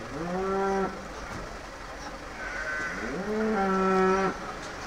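Two low, steady bleats from penned sheep and goats: a short one right at the start and a longer one about three seconds in, each sliding quickly up in pitch and then holding level before stopping abruptly.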